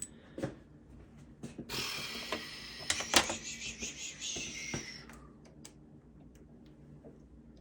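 Small parts of a connector and its wiring being handled: scattered sharp clicks and knocks, with a few seconds of scraping, rustling noise between about two and five seconds in. The sharpest click comes a little after three seconds.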